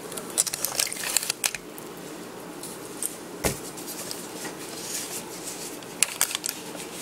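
Plastic bag crinkling and rustling as it is handled, in crackly bursts over the first second and a half and again about six seconds in, with one sharp click midway.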